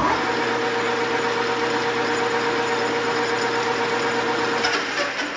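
ANMEC BL330E gear-head lathe engaged with a sharp clunk of the spindle control lever, then running steadily with a whine from its headstock gears. Near the end the strongest part of the whine drops out as the lathe is stopped.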